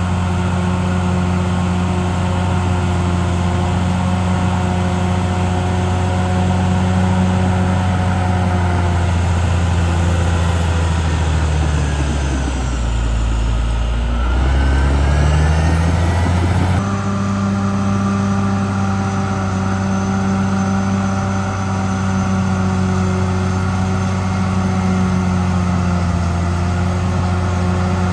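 CAT D6R XL bulldozer's diesel engine running steadily, its pitch dropping about twelve seconds in and climbing back over the next few seconds, with an abrupt change in tone shortly after.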